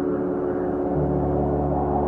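Ambient background music of sustained, gong-like tones, with the low note changing about a second in.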